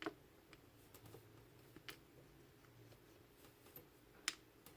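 Near silence broken by a few faint, sharp clicks of small steel and brass lock key pins being handled as they come out of a mortise cylinder's plug.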